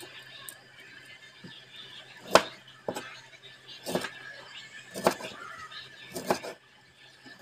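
Cleaver slicing limes on a wooden chopping board: about five sharp knocks of the blade through the fruit onto the board, roughly one a second, the second or so after two seconds in the loudest.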